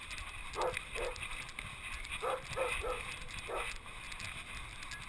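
A dog barking: about six short barks, two near the start and a quicker run of four in the middle.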